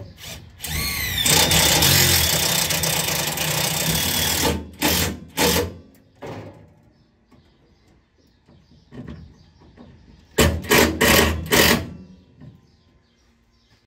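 A power drill driving self-drilling sheet metal screws into a sheet-metal panel. The motor winds up and runs for about four seconds as a screw drills through. Then come a few short trigger bursts, and another cluster of short bursts near the end.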